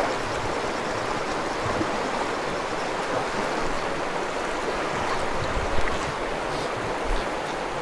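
River current rushing steadily, with a couple of brief low thumps about three-quarters of the way through.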